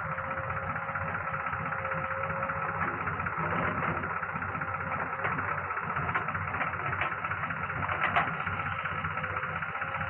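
Diesel engine of a JCB 3DX backhoe loader running steadily, with a few brief metallic clanks in the second half.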